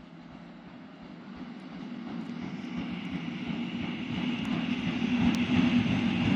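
GB Railfreight Class 73 locomotive hauling a freight train approaching, its running noise growing steadily louder.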